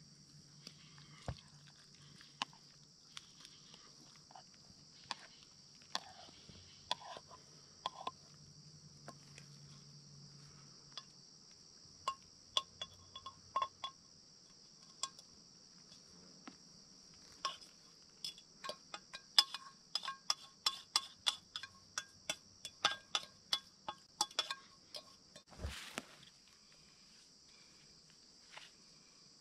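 Metal cookware clinking and tapping as noodles are tipped from a metal pot into a frying pan: a few scattered clinks at first, then a quick run of ringing clinks. A steady high drone of insects runs underneath.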